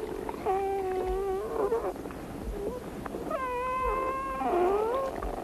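Wolf pups whining and squealing in a series of high-pitched cries. One cry is held steady about half a second in, a longer one comes past the middle, and a last cry dips and rises again near the end.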